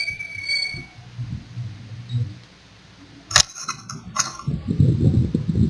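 Hands working on an open laptop: two sharp clicks, about three and a half and four seconds in, then low rustling and handling noise near the end.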